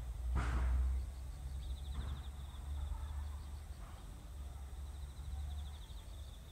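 A loud bang about half a second in, then two fainter knocks, from materials being moved about in a school gymnasium, over a steady low rumble and a high, rapidly pulsing chirring.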